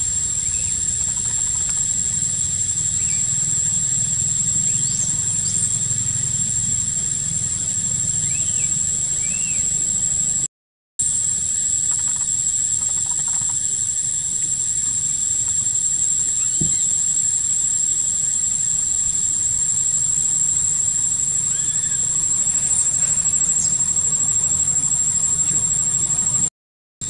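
Steady high-pitched buzzing of forest insects over a low ambient rumble, with a few faint short high chirps scattered through. The sound cuts out briefly about ten seconds in and again near the end.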